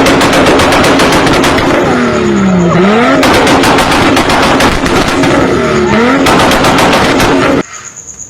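Toyota Supra's tuned exhaust: the engine revving down and back up twice under a rapid machine-gun-like string of exhaust pops and bangs, very loud, cutting off suddenly near the end.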